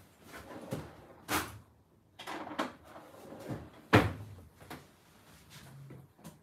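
Kitchen cupboard and kitchenware being handled while a grater is fetched: about half a dozen sharp knocks and clacks, the loudest about four seconds in.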